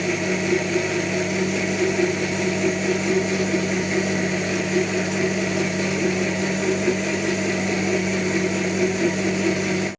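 Electric blender motor running steadily at one speed while whipping cream, a constant hum with a thin high whine above it, cutting off suddenly at the end.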